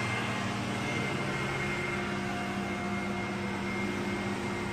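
Steady mechanical hum of a running motor, with several held tones and no change in level.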